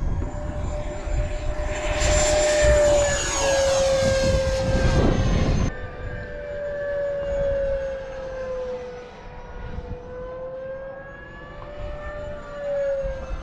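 Freewing Stinger 90's 12-blade 90mm electric ducted fan whining in flight, one high steady note that drifts gently up and down in pitch as the jet moves about the sky. Low rumbling noise runs underneath, and a louder rushing noise comes in about two seconds in and stops abruptly near six seconds.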